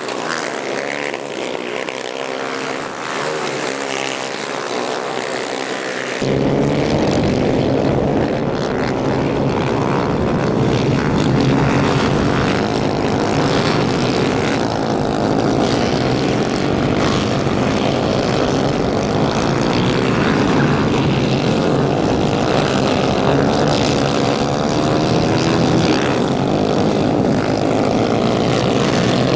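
Several 250 cc racing kart engines running hard, their pitch rising and falling as the karts accelerate, lift and pass. About six seconds in the sound becomes suddenly louder and fuller.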